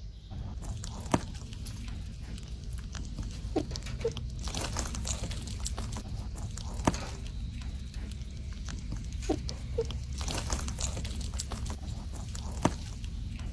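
Rabbits chewing and rustling long grass leaves: a patter of small crunches and leaf rustles, with a sharp click now and then, over a low steady rumble.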